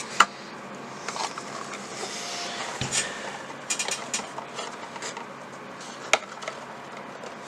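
Hard plastic packaging being handled: scattered sharp clicks and some rubbing as the GoPro Hero 5 Black's plastic display case is worked at to free the camera. The sharpest clicks come just after the start and about six seconds in.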